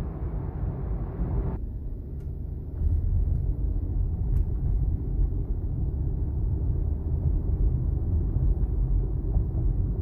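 Low rumble of road and tyre noise inside the cabin of a moving 2021 Audi A6 Quattro, growing louder about three seconds in.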